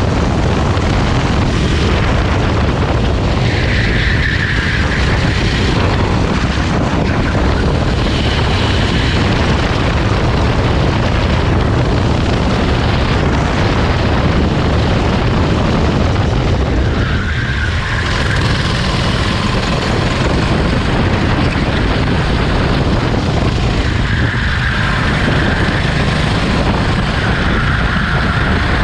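Go-kart engine running on track, a loud, steady drone heavy in rumble.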